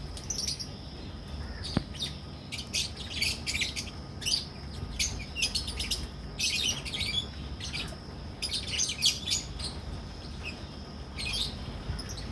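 A flock of lovebirds (Agapornis) chirping, with clusters of short, high-pitched chirps coming every second or so and overlapping.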